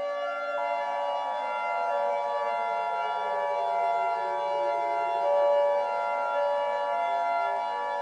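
Civil defense siren sound effect wailing, its pitch sliding down to a low point about five seconds in and then rising again, over a bed of steady held tones. A steady higher tone comes in just after the start.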